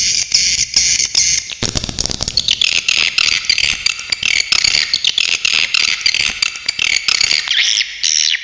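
Swiftlet calls: a continuous, dense, high-pitched chattering twitter with sharp buzzy trills, used as a tutoring recording for songbirds. A brief low rumble comes about one and a half seconds in, and the sound cuts off suddenly at the end.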